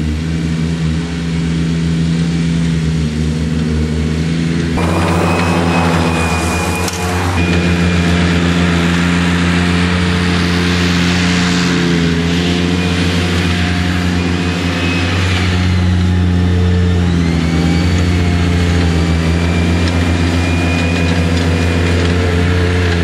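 Avant compact loader's engine running steadily with its hydraulically driven 1200 mower attachment. About five seconds in, a rushing noise and a high, wavering whine join the engine and carry on.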